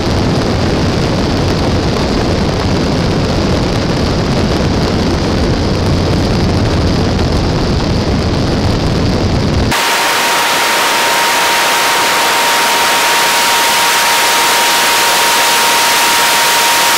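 Airflow and engine rumble of a Mooney light aircraft, heard from a camera mounted outside under the tail, so the wind buffets the microphone. About ten seconds in the rumble cuts off abruptly and gives way to a steady hiss with a thin, steady whine.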